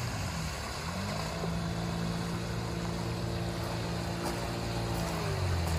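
Small boat's outboard motor running, speeding up about a second in, holding a steady pitch, then slowing near the end.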